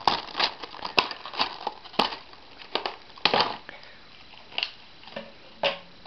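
Scissors cutting through a stiff clear plastic blister pack: a run of sharp, irregular snips and crackles of the plastic.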